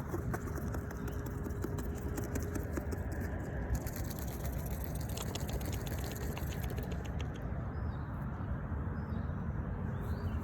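Goose mouthing and tugging the zipper pulls on a backpack: quick light clicks and rattles, coming thickest in the middle and stopping about seven seconds in, over a steady low rumble. Small birds chirp a few times near the end.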